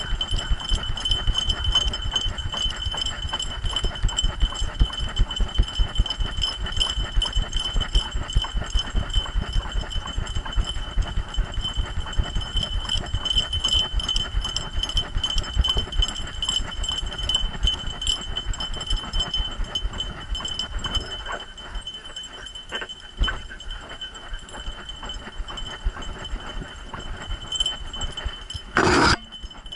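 Quick, uneven thudding of a running dog's strides, heard through a camera harnessed to its back, over a steady high-pitched whine; the thudding eases after about twenty seconds as the trail turns to pavement. A short, loud sound cuts in just before the end.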